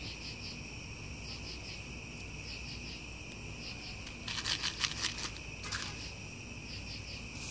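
Crickets chirping steadily in a continuous high chorus. A little past halfway there is a short burst of crackling noise, with a smaller one just after.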